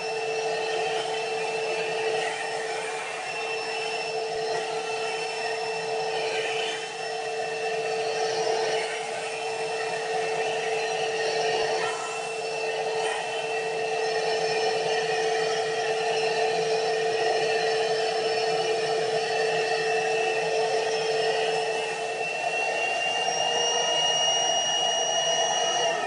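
Tub vacuum cleaner running steadily as it sucks up polystyrene beanbag beads through its wand. Its pitch rises slightly near the end.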